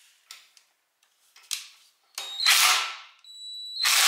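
Cordless impact wrench driving the forcing screw of a harmonic balancer puller on a GM 10-bolt rear axle's pinion yoke: a few light metal clicks, a short burst from the wrench about two seconds in, then its motor whines and it hammers steadily from near the end. The yoke is rusted onto the pinion.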